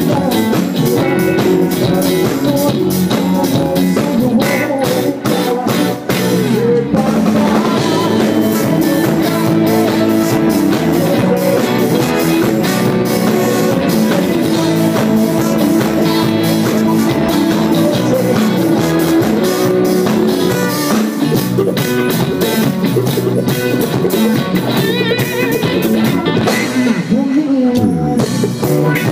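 Live rock band playing a song, with guitar and drum kit keeping a steady beat.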